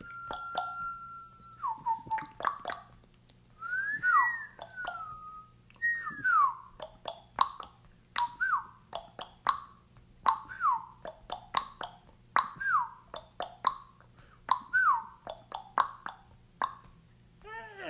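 Whistled bird-like calls. A long held note dips at about a second and a half; after a pause, short notes each slide downward, about once a second. Sharp clicks and pops fall between the notes.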